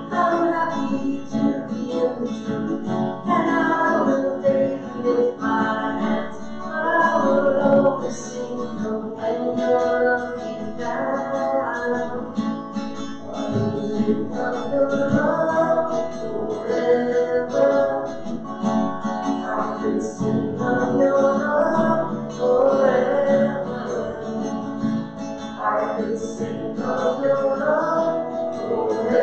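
Acoustic guitar music, played without a break.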